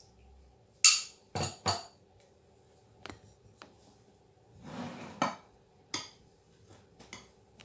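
A small glass bowl and a metal spoon clinking against dishes and being set down on the counter: a handful of sharp clinks, the loudest about a second in, and a brief scraping shuffle midway.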